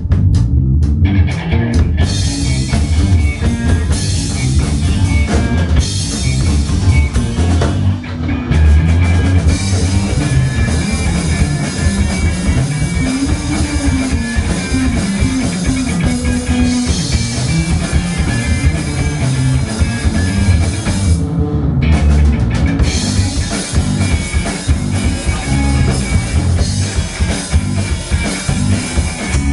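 Live rock band, with electric guitar, bass guitar and drum kit, playing loudly in a small club and heard from among the audience. The cymbals drop out briefly about two-thirds of the way through.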